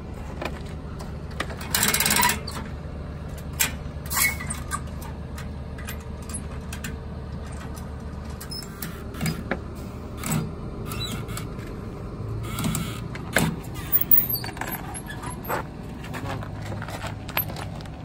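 Metal clinks and rattles of straps and hardware, with a short louder clatter about two seconds in, over a steady low engine hum that grows fainter about halfway through.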